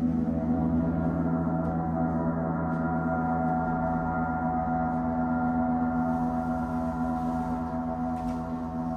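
Large suspended gongs sounding in a sustained wash of many overlapping tones, with no distinct strikes, slowly fading toward the end.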